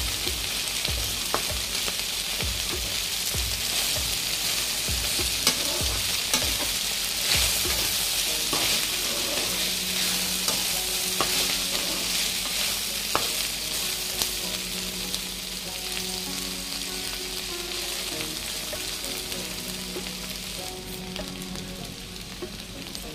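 Ivy gourd pieces sizzling in hot oil in a kadai, stirred with a perforated steel spatula that scrapes and clicks against the pan, the clicks thickest in the first few seconds. The gourd is being fried until its raw smell is gone.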